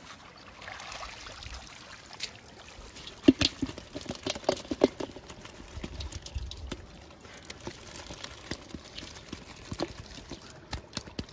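Water trickling and dripping from a bamboo ghuni fish trap, then small fish and water tipping out of the trap into a metal bowl, with a cluster of ringing knocks about three to five seconds in and scattered small clicks after.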